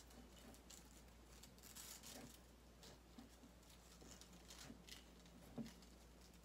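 Faint rustling and small taps of ribbon being tied around the neck of a painted glass jar, with one soft knock near the end.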